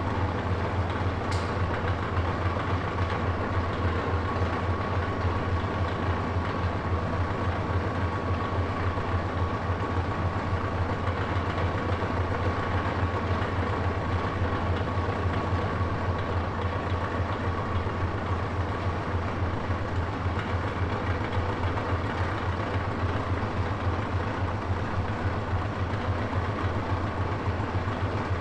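Steady low mechanical hum with a rapid flutter, unchanging throughout, with a faint high whine over it that fades out about two-thirds of the way through.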